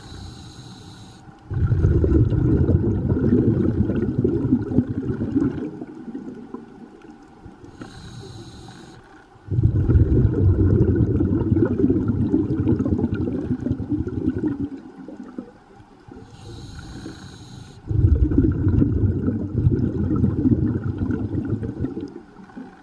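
Scuba diver breathing through a regulator: three breaths, each a short hissing inhale followed by several seconds of low, bubbling exhaust as the exhaled air escapes.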